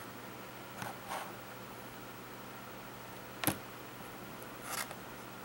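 Handling noises from a small perfboard circuit and its plastic-sheathed cables: a few light rustles and knocks, with one sharper click about three and a half seconds in, over a faint steady hum.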